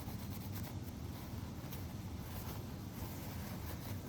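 Faint rubbing and small ticks of a Zippo lighter being cleaned by hand, over a steady low hum.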